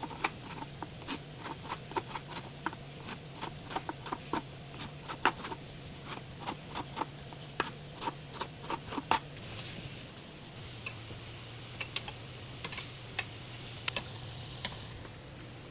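Kitchen cooking sounds: quick light clicks and taps at about three or four a second, over a low steady hum. About nine seconds in they thin out into a soft hiss with occasional pops.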